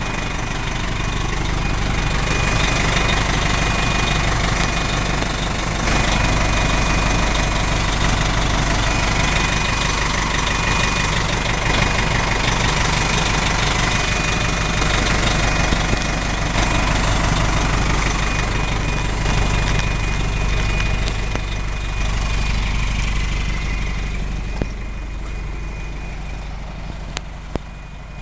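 Detroit Diesel Series 50 four-cylinder diesel engine of a 2000 E-ONE fire truck idling steadily, heard close up, with a thin high whine at times. It gets fainter over the last few seconds.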